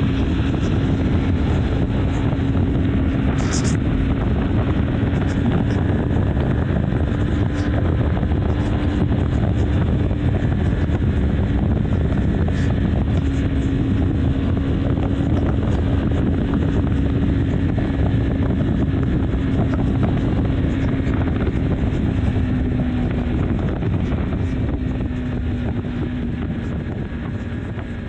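BMW G310 R's single-cylinder engine holding a steady tone at highway cruising speed, under heavy wind noise on the microphone and road noise. It fades out over the last few seconds.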